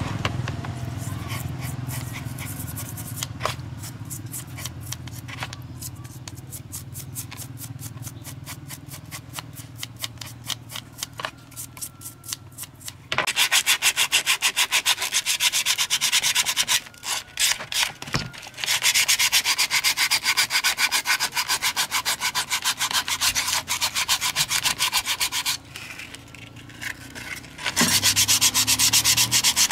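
Rapid back-and-forth abrasive scrubbing on a part, like hand sanding during restoration. The strokes are faint for about the first half, then loud, with two short breaks.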